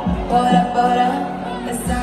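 Pop song playing with a sung vocal line over a deep kick drum beat.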